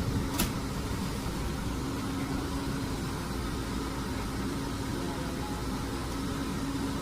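Machinery running steadily: a low rumble with a constant hum, and a single sharp click about half a second in.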